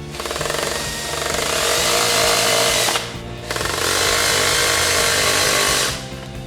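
A power tool running in two bursts, about three seconds and then about two and a half seconds, with a short pause between, cutting off suddenly near the end.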